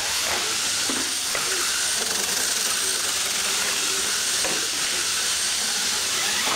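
Radio-controlled monster truck running across a concrete floor, its drivetrain and tyres making a steady high hiss.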